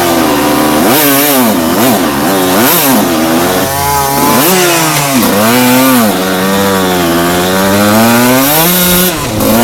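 Enduro motorcycle engine under hard riding, its pitch rising and falling again and again as the throttle is opened and closed, with a longer steady climb in revs in the second half before it drops sharply.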